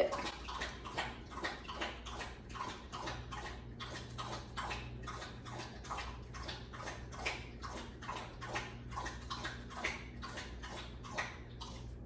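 A dog lapping water from a bowl in a steady rhythm of about three laps a second.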